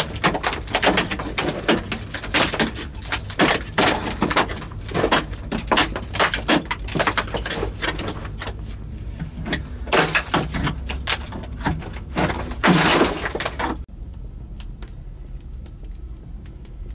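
Rock being broken out of a cave wall: a dense run of cracks, knocks and clattering stones, with a louder, longer crumbling burst about 13 seconds in. It stops suddenly at a cut, leaving a quieter low background with a few faint ticks.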